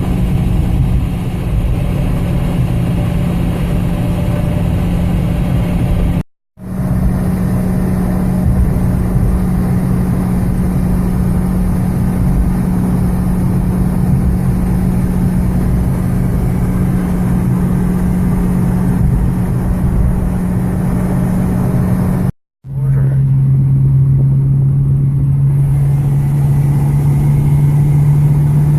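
Car driving: a steady engine drone over low road rumble, broken by two brief dropouts where clips are joined. After the second dropout the drone settles at a lower pitch.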